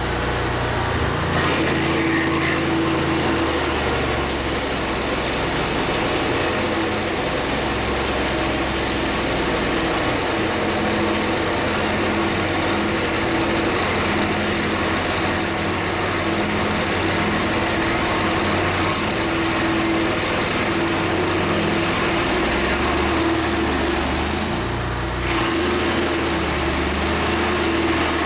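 A small engine running steadily, its pitch held even while the lower tones shift a little now and then, as with a machine working under changing load.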